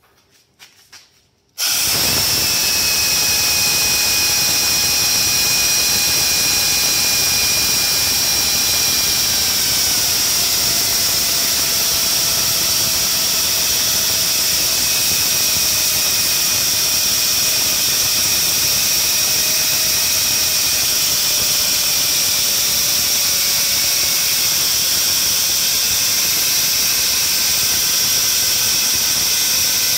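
An old die grinder with a grinding wheel starts up suddenly a couple of seconds in, together with the lathe, and runs with a loud, steady high whine and hiss while grinding a taper on a hardened steel shaft on its last pass. The whine's pitch slowly sags as the pass goes on.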